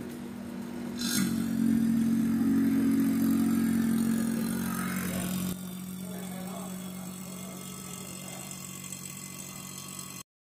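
A motor running steadily with a low, even hum, louder for the first half and then quieter. Two short hisses come through, about a second in and again around four to five seconds in. The sound cuts off suddenly near the end.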